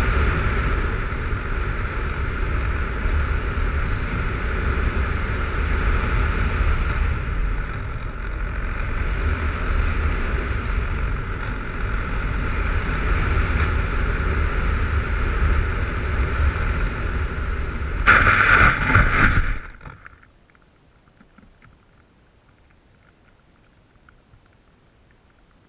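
Small radio-controlled model airplane in flight, heard from a camera on its nose: steady wind rush with heavy buffeting and the drone of its motor. About 18 s in comes a loud scraping burst lasting a second and a half as it touches down and slides on the grass, and then the sound drops to a faint hush.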